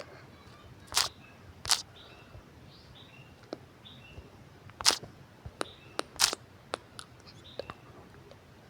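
Irregular clicks of someone typing on a keyboard, about a dozen scattered keystrokes with a few louder taps.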